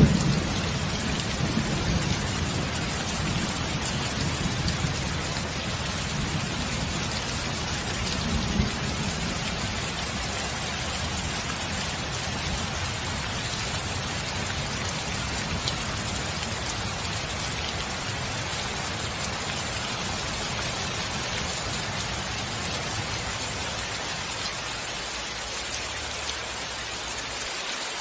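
Thunderstorm: steady heavy rain. A low thunder rumble is loudest right at the start and dies away over the first several seconds, with a smaller swell about eight seconds in; after that the rain carries on alone.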